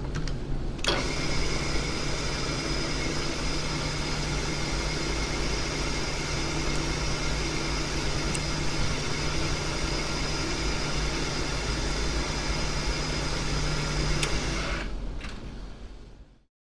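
Drilling machine running, with a left-hand drill bit cutting into a broken bolt to back it out of its threaded hole: a steady machine hum with a faint whine. A knock comes about a second in, and the sound fades out near the end.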